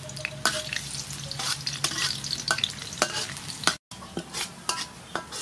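Chopped garlic sizzling in hot soybean oil in a metal wok, with a metal spatula scraping and clinking against the pan as it is stirred. The sound breaks off for an instant a little under four seconds in.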